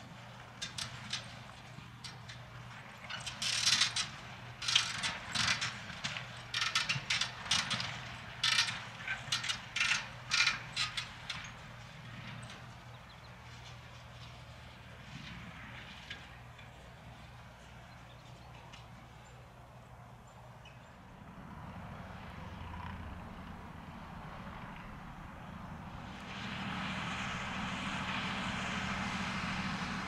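John Deere 7280R tractor's six-cylinder diesel engine running steadily under load as it pulls an eight-furrow Kverneland plough. For several seconds early on, a run of sharp clicks close by is the loudest sound. The engine grows louder over the last few seconds.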